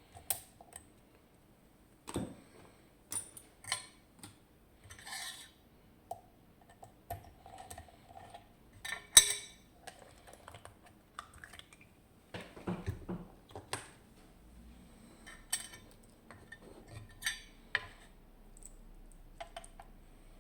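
Irregular small metallic clicks and clinks of a high-security pin-tumbler lock and metal tools being handled and rearranged after the lock was picked open, with one sharper knock about nine seconds in.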